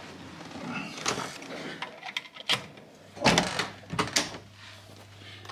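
Hotel room door being opened: the lever handle and latch clicking and the door knocking as it is pushed open, a run of sharp clacks with the loudest about three seconds in. A steady low hum sets in near the end.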